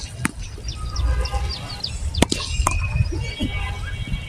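A sharp knock about a quarter second in, as a cricket bat hits a tennis ball, then two more knocks later. Birds chirp, and wind rumbles on the microphone.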